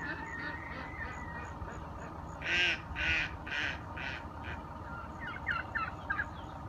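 A bird giving a series of about six harsh calls, loudest at first and fading. A few short, quick chirps follow near the end.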